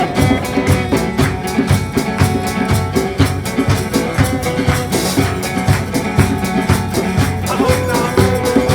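Music with a steady drum beat and bass.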